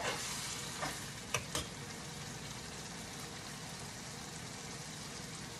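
Ground beef and vegetables sizzling steadily in a hot pan as they are stirred. A few sharp clicks of the utensil against the pan come in the first two seconds.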